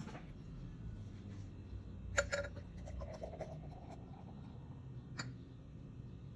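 Beer poured from a glass bottle into a tall stemmed glass: a faint gurgle of liquid rising in pitch as the glass fills, with a ringing clink of glass on glass about two seconds in and a lighter click about five seconds in.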